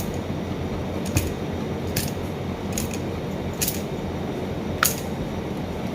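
About six short, sharp clicks at uneven intervals of roughly a second, the loudest near the end, over a steady low background hum.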